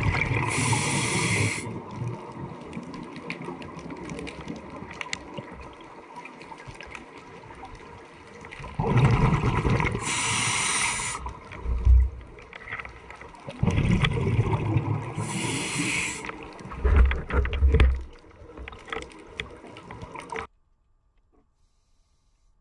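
A scuba diver breathing through a regulator, heard underwater: three surges of regulator hiss and rushing exhaled bubbles, a few seconds apart, over steady water noise. The sound cuts off suddenly about twenty seconds in.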